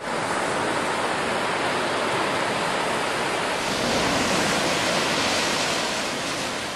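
Ocean surf breaking on a sandy beach: a steady rushing wash of waves that swells a little about halfway through and fades near the end.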